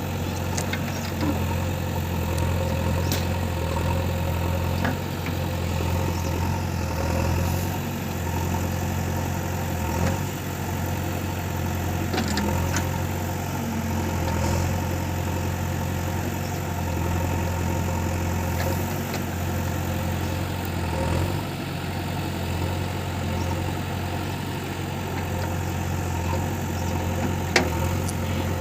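JCB 3DX backhoe loader's diesel engine running steadily, with a few sharp knocks every several seconds, the loudest near the end.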